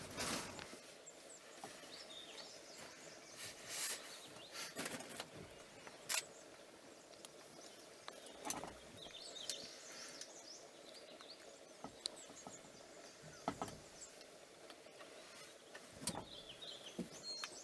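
Faint open-air ambience with scattered short, high bird chirps and a few sharp clicks or knocks.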